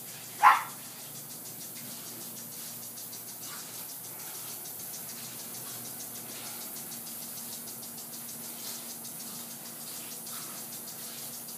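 A single sharp bark from a border collie puppy about half a second in.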